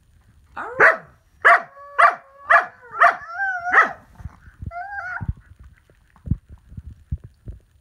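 Samoyed giving a quick run of six short barking howls, each rising sharply in pitch, about two a second, followed near five seconds by a shorter wavering call. Soft low thumps follow.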